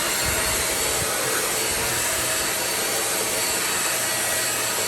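Deerma DX700 corded 2-in-1 stick vacuum cleaner running steadily: a loud, even rush of air with a faint high whine.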